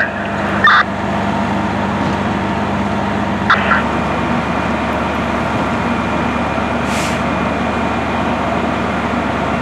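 Fire engine's engine running steadily at idle, a constant low hum, with a short hiss about seven seconds in.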